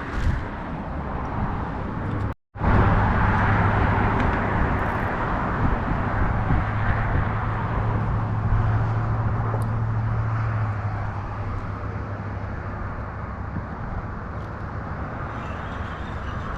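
An engine hums steadily under a loud rushing noise. The hum drops away about eleven seconds in, leaving the rush. The sound cuts out completely for a moment about two seconds in.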